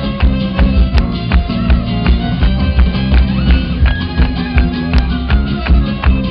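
Live band playing amplified music, heard from the audience, with guitar over a steady driving beat and heavy bass.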